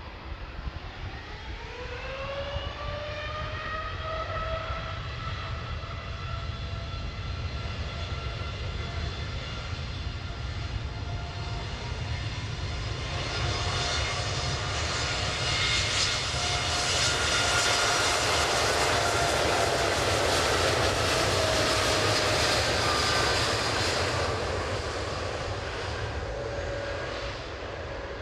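Boeing 787-10's jet engines spooling up to takeoff thrust: a whine rises in pitch over the first few seconds, then holds steady. A roar builds under it and is loudest in the second half as the airliner accelerates on its takeoff run, and the whine eases slightly lower near the end.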